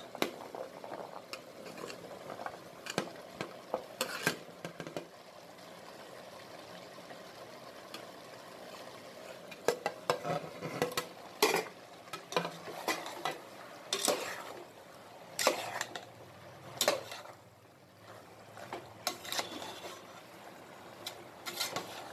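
Chopped vegetables tipped into a pressure cooker near the start, then a steel spoon stirring them with soya chunks, clinking and scraping against the pot in irregular knocks. A faint frying sizzle runs underneath.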